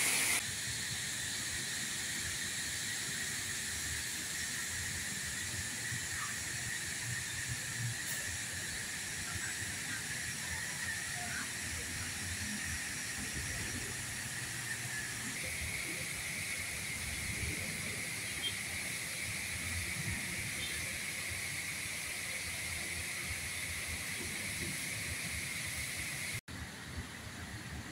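Steady rushing hiss of water pouring over a dam's spillway and rocks.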